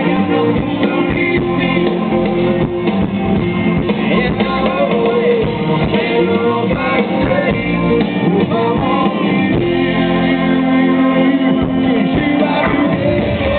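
Live rock band music: acoustic guitar, upright double bass and drum kit playing, with a voice singing over them. It is heard through a crowd recording with a muffled, dull top end.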